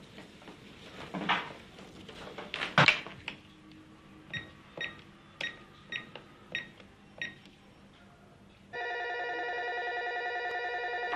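A push-button telephone being dialled, with a few handling clicks first, then about seven short key beeps roughly every half second. After that a landline telephone's electronic ringer trills steadily for the last couple of seconds.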